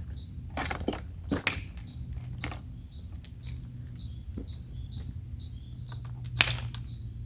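A bird chirping over and over, about two short high chirps a second, with several knocks and clatters, the loudest about six seconds in, and a low hum setting in about two seconds in.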